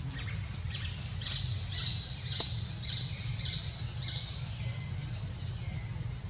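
Forest ambience: a bird gives a run of short, high chirps, about two a second, through the middle of the clip, with one sharp click among them. Underneath runs a steady low rumble and a thin, steady high hiss.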